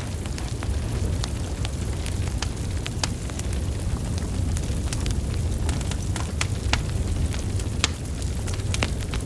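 Wood fire of burning logs crackling: a steady low rumble of flames with frequent irregular sharp crackles and pops.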